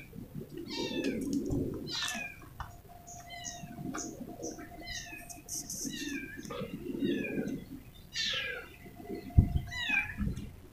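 Repeated short, high-pitched animal calls, each one falling in pitch, over a faint steady tone.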